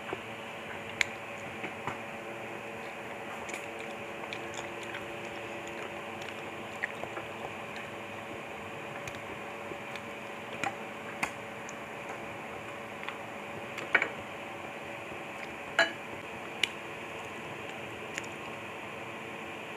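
Close-up eating sounds of noodle soup: scattered short slurps, wet mouth clicks and spoon knocks against the bowl, the two loudest a little past the middle, over a steady background hum.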